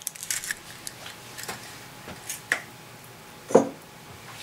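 Quiet kitchen handling noise: a few faint light clicks and taps, then one dull knock about three and a half seconds in.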